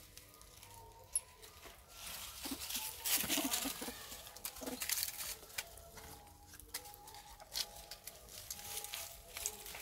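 Macaques calling with short, bleat-like squeals, busiest two to four seconds in, over rustling and scattered clicks from movement in dry leaves.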